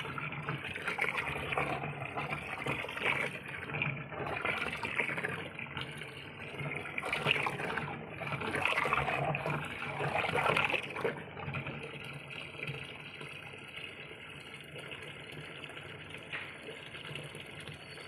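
Water running from a rubber hose into a washing machine's wash tub of soapy water, filling it. The splashing is louder for the first eleven seconds or so, then settles to a quieter, steadier flow.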